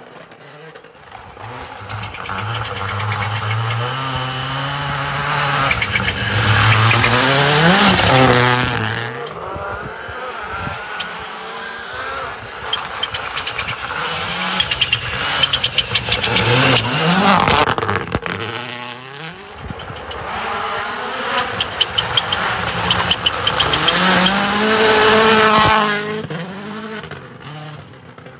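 Hyundai i20 Rally1 Hybrid's turbocharged four-cylinder rally engine revving hard and dropping back through gear changes as the car runs along a snowy stage, swelling louder and fading away three times. A rapid crackle of pops sounds in the middle.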